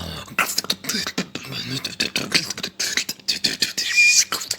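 Vocal beatboxing: a fast, dense run of mouth-made kick, snare and click sounds, with a brief high steady tone about four seconds in.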